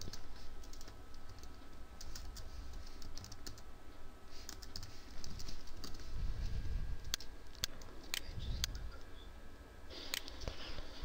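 Computer keyboard being typed on: an uneven run of key clicks as a word is entered.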